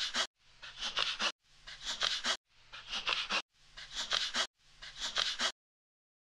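Computer mouse scroll wheel being rolled in six short flicks, about one a second, each a quick run of ratchet ticks as the page scrolls down.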